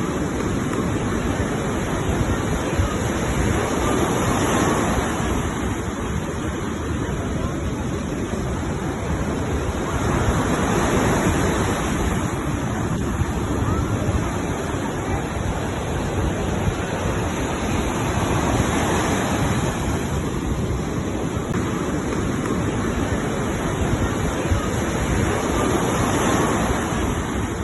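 Steady rush of sea and wind at sea, with waves swelling every several seconds and wind buffeting the microphone.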